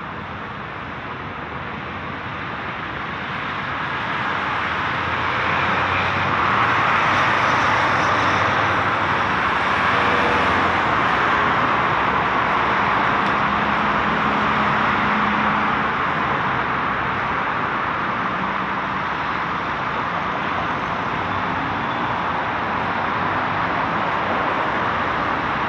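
Road traffic: a steady wash of vehicle engine and tyre noise that swells louder a few seconds in, with a faint engine hum from a passing vehicle midway.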